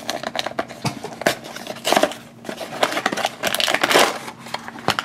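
A small cardboard blind box being handled and opened by hand, then the foil bag inside pulled out, crinkling and rustling in bursts.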